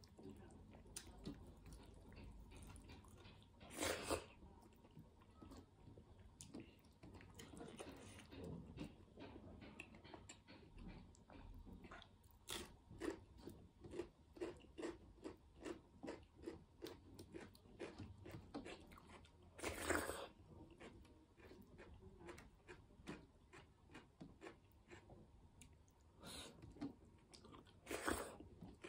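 Close mouth sounds of a person eating a handful of maize rice mixed with dal: soft, wet chewing that settles into a steady rhythm of about two chews a second for a stretch in the middle. There are three louder, brief noises, the last as a mouthful is taken near the end.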